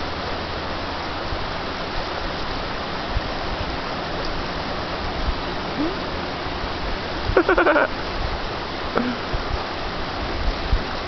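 Fast glacial river rushing steadily with an even hiss of water. About seven and a half seconds in, one short pitched sound rises briefly above it.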